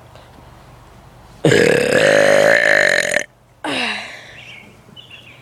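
A man's deliberate, loud, low-pitched burp lasting nearly two seconds. A shorter, quieter vocal sound with a falling pitch follows a moment later.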